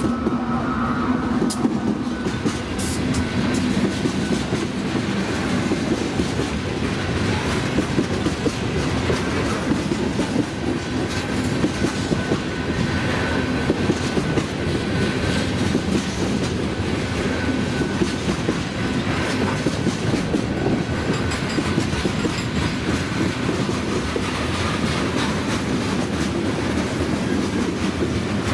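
Freight train passing close by: a diesel locomotive goes past at the start, then a long string of tank cars and loaded hopper cars rolls by steadily, wheels rumbling and clattering on the rails.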